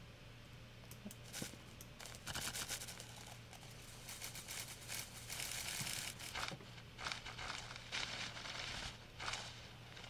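A paper-crumpling sample played through Ableton's Granulator II granular synth into a Grain Delay: irregular crinkly, crackling paper bursts that swell and fade into a smeared, glitchy texture.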